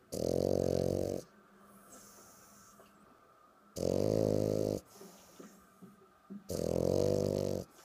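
French bulldog snoring: three loud snores, each about a second long, roughly three seconds apart.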